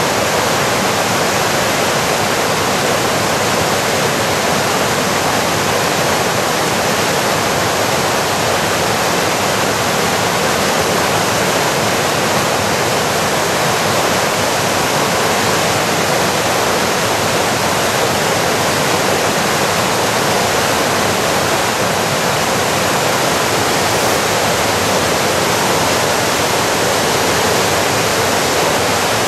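Waterfall in heavy flow, foaming whitewater pouring over rock in a loud, steady, unbroken rush.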